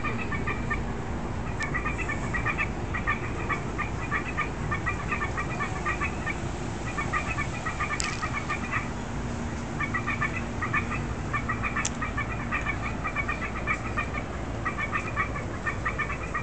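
Unseen animal calling: a steady run of rapid chattering notes at two pitches, in bursts of about a second separated by short gaps. A few sharp clicks stand out.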